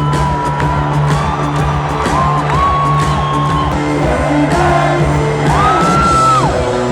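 Loud live concert music with a steady bass line and a high tone gliding up and down, with whoops from the crowd.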